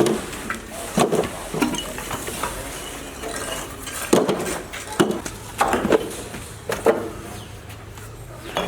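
Irregular knocks and clinks of hard objects striking one another, spaced about a second apart, over steady background noise.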